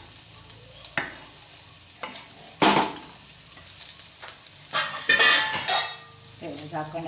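Wooden spatula stirring and scraping rice in a non-stick kadhai: a sharp click about a second in, then two separate scraping strokes, the longer one near the end.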